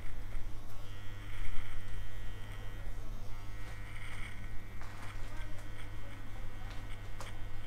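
Electric hair trimmer buzzing steadily with a low hum as it is run along the cheek and sideburn, cutting stubble.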